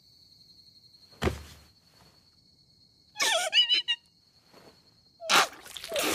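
Soundtrack effects for a horror scene. A thin, steady, high ringing tone holds under most of the clip. A single dull thud comes about a second in, a short wavering, cry-like sound about three seconds in, and a loud sudden burst near the end.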